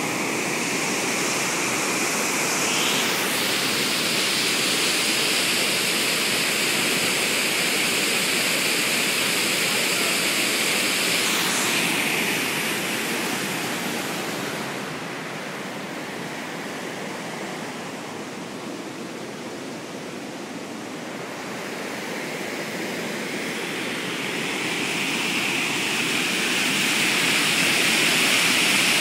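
Wadsworth Falls, a waterfall pouring into a foaming pool: a loud, steady rush of water that grows fainter and duller about halfway through, then swells back up to full strength near the end.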